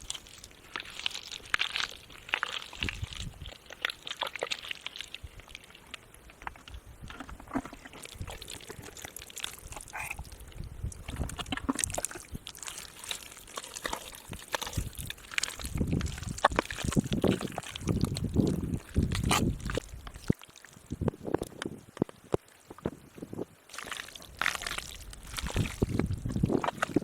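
Irregular splashing and sloshing in shallow muddy water, with scattered sharp clicks and slaps; the sloshing grows heavier and deeper about halfway through and again near the end.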